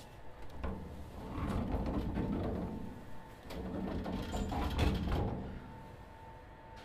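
Sliding passenger doors of a Sotetsu 7000-series commuter train closing, a low rumble with knocks in two spells over a few seconds, then the car settles to a faint steady hum.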